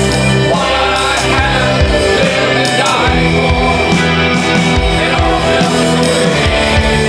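A man singing a slow rock song over strummed acoustic guitar, the line "but when I gaze upon your face, what I have lived and died for, it all melts away".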